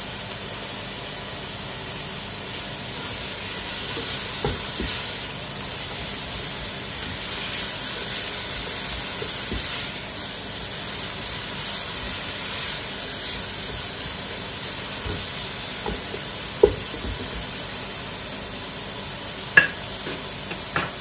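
Carrots, red bell pepper and green chili sizzling in olive oil over high heat: a steady frying hiss. Two sharp clicks come near the end.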